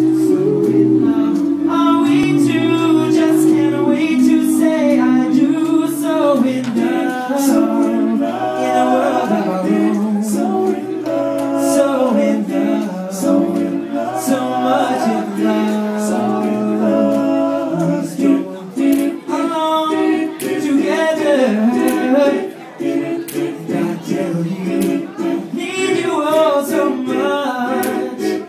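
Male a cappella group singing in close harmony through handheld microphones, a low bass line under a moving lead melody, with a steady percussive beat of sharp clicks over it.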